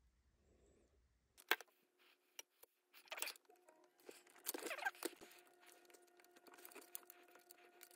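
Scattered light clicks, rustles and short scraping and crinkling sounds of hands peeling the backing off an RC speed controller's double-sided mounting tape and pressing the controller and its wires into a plastic buggy chassis. A faint steady hum sets in about a second and a half in.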